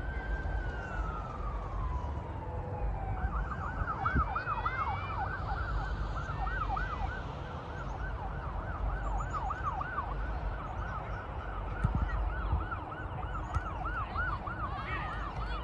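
An emergency-vehicle siren: a slow wail that falls away, then switching about three seconds in to a fast, repeating yelp that runs on, over a low rumble. A couple of sharp knocks stand out, the loudest about twelve seconds in.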